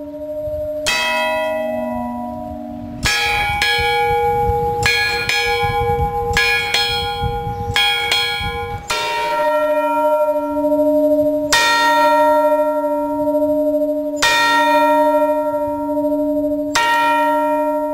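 Tower bells struck and left ringing. A single strike comes about a second in, then a higher-pitched bell is struck in a quick, uneven run of about two strikes a second from about 3 to 9 seconds in. After that a deeper bell is struck slowly, about once every two and a half seconds.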